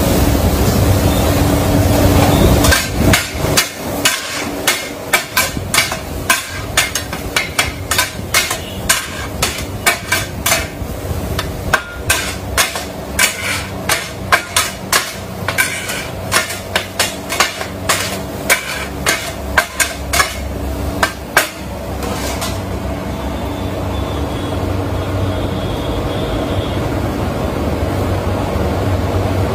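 Kottu roti being chopped on a flat iron griddle with a pair of metal blades: a fast, uneven run of sharp metal clacks, two or three a second. It starts about three seconds in and stops about twenty-two seconds in, over a steady drone.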